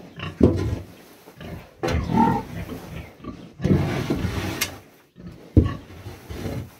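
Pig grunting repeatedly: several gruff grunts a second or two apart.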